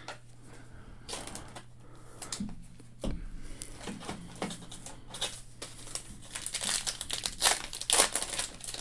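Paper wrapper of a baseball card pack crinkling as it is handled, then tearing open. It is loudest in the last couple of seconds, with a faint steady hum underneath.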